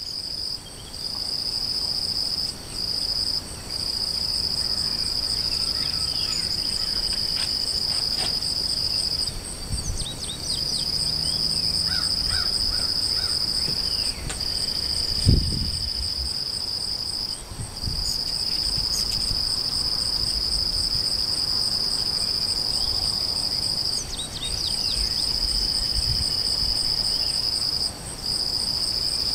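Insect chorus: a steady high-pitched trill in long stretches broken by brief pauses every few seconds, with a fainter pulsing trill above it. A few faint short chirps come through, and there is one brief low thump about halfway through.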